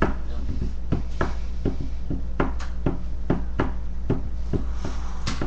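Irregular light taps and clicks, roughly two a second, over a steady low electrical hum.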